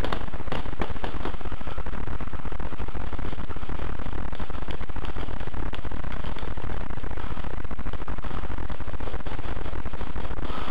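Constant loud buzz from a helmet-mounted camera's microphone, masking most other sound, with a few scattered faint clicks.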